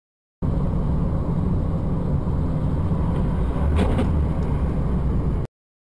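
Car driving, heard through a dashboard camera's microphone inside the cabin: a steady low rumble of road and engine noise, with two short knocks close together about two-thirds of the way through. The sound starts and cuts off abruptly.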